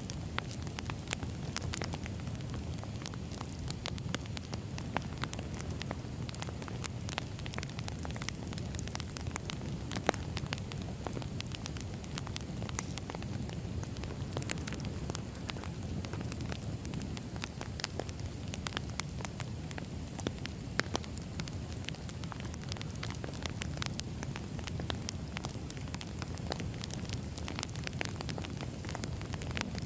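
Wood fire crackling: frequent irregular sharp snaps and pops over a steady low rumble of burning logs.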